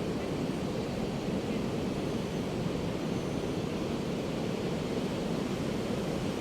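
Ocean surf washing onto a sandy beach: a steady rushing with no single wave breaking out above the rest.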